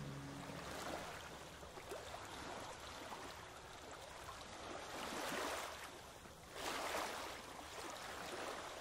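Sea water washing past a sailing catamaran's hulls: a faint, steady rush with two stronger surges, about five and seven seconds in.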